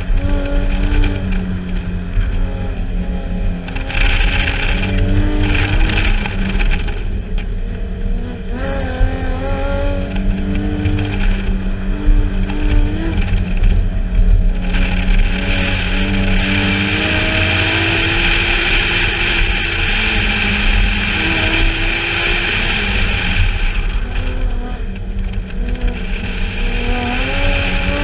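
Car engine under hard driving on an autocross run, its pitch climbing and dropping again and again as the driver accelerates and lifts between cones. Tyres squeal through the long corners, most of all over a stretch in the second half, and wind rumbles on the car-mounted microphone.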